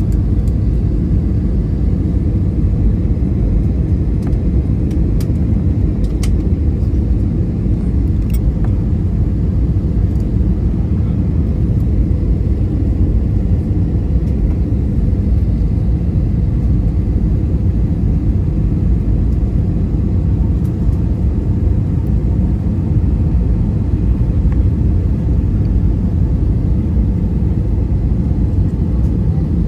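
Steady low rumble of an Airbus A320's engines and airflow heard inside the cabin, with a few faint ticks between about five and eight seconds in.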